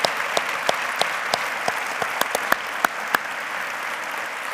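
A large congregation applauding: a dense wash of many hands clapping, with a few sharp single claps standing out, slowly thinning and getting quieter toward the end.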